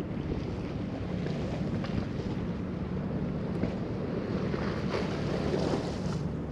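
Steady low rumble of wind on the microphone over the wash of the sea, with a few faint clicks.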